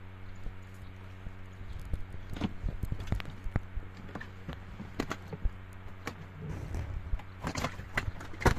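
Irregular knocks and taps on a wooden boat as a fishing net is hauled aboard and a tilapia taken from it, growing busier and louder near the end, over a steady low hum.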